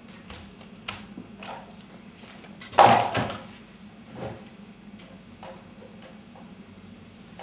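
Bare feet stepping and stamping on a stage floor as a dancer moves, giving a series of short knocks, with one much louder thump about three seconds in.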